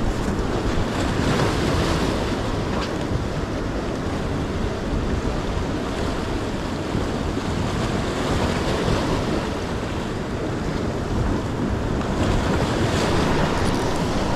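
Ocean swell washing and breaking over jetty rocks, with wind buffeting the microphone in a steady rumbling rush.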